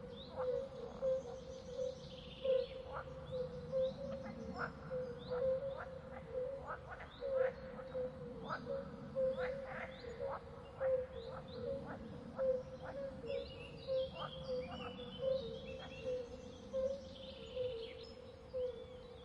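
Swamp ambience of wildlife calling: a steady, pulsing chorus at one pitch, with many short sharp chirps and bird calls over it.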